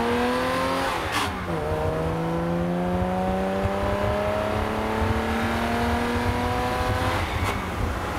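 Jaguar E-Type's straight-six engine pulling hard, heard from inside the open cabin. Its pitch climbs steadily and drops sharply twice as the driver changes up a gear, about a second in and again near the end, each change with a short click.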